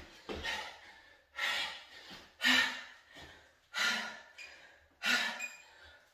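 A man breathing hard from exertion during a dumbbell workout: five sharp, gasping breaths about one every second or so, each fading quickly.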